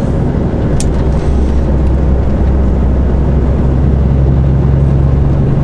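Diesel engine of a 44-tonne articulated lorry running at a steady cruise with tyre and road noise, heard from inside the cab. The low engine hum grows stronger about four seconds in.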